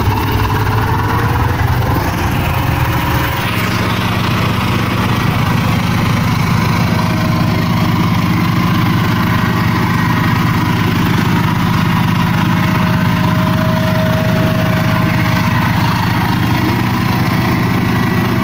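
VST 135 DI Ultra power tiller's single-cylinder diesel engine running steadily as it tills a wet paddy field. The engine note shifts slightly about three and a half seconds in, then holds steady.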